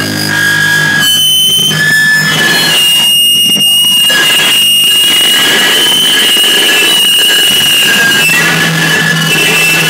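Loud amplified noise music: high feedback tones squealing steadily and drifting slightly in pitch over a dense wash of distorted hiss, with a low hum coming in near the end.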